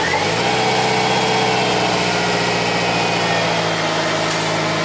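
Small electric washer-pump motor running steadily with a hiss, powering the intercooler water spray; the owner judges this motor not to be working properly.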